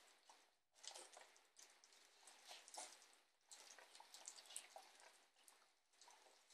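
Tortoises biting and chewing raw vegetables such as tomato, celery and cucumber: faint, irregular wet crunching and squishing with small clicks.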